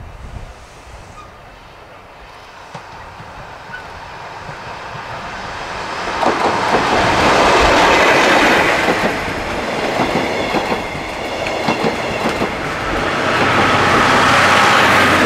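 Passenger train of 12 series coaches hauled by electric locomotives approaching and passing close by, its wheels clacking over the rail joints. It grows loud from about six seconds in and swells again near the end as the trailing electric locomotive goes by.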